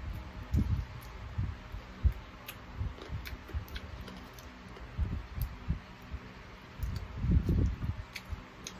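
Close-up eating sounds from chewing and sucking on cooked chicken feet: irregular wet mouth noises with small sharp clicks scattered through, the loudest cluster a little past seven seconds in.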